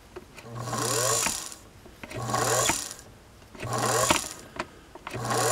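A 1957 Singer 221 Featherweight sewing machine's motor, its belt off, spinning free in four short bursts. Each burst whirs up in pitch for about a second with a low hum under it, then cuts out. The motor itself works.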